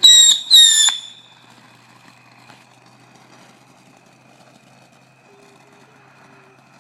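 Two shrill whistles from a whistling firework, each about half a second long and dropping slightly in pitch, back to back in the first second.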